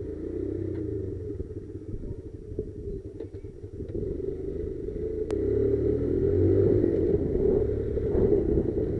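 Motorcycle engine running with a low rumble, getting louder about five seconds in as it climbs.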